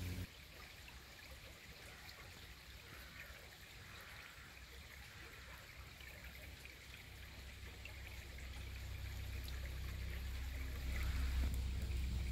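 Shallow woodland stream trickling gently over stones and leaf litter, a faint steady running-water sound. A low rumble builds under it in the second half and grows louder near the end.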